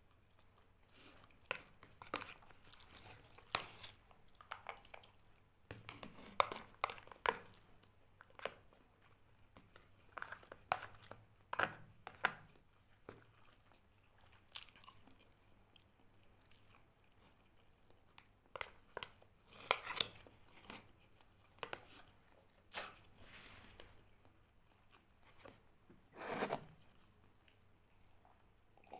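A person chewing and biting food close to the microphone, with irregular crunches and wet mouth sounds.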